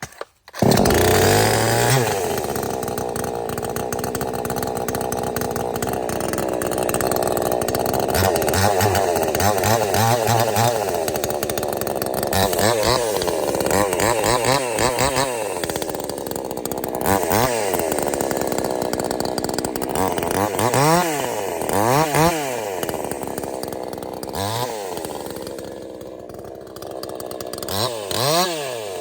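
A 62cc two-stroke chainsaw, basically already muffler-modded, catches about half a second in and keeps running. From about nine seconds on it is revved up and down again and again, with a quieter idle stretch near the end.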